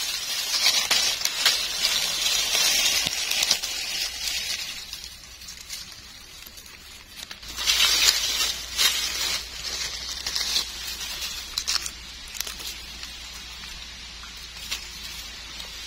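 Dry fallen leaves and grass rustling and crackling as gloved hands push through the leaf litter, in two louder spells: at the start and again about eight seconds in.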